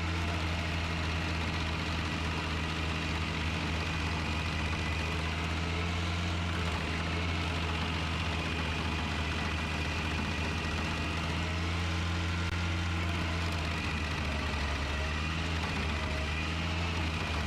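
Vermeer SC505 stump grinder's engine running steadily at an even speed, with no change in load.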